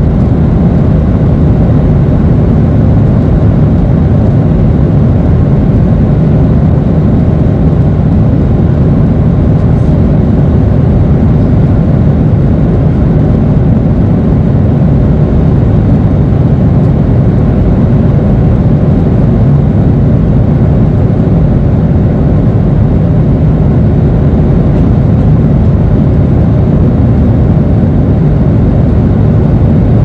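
Loud, steady airliner cabin noise at cruise: the even low rumble of jet engines and rushing airflow, with no separate thunder or other events standing out.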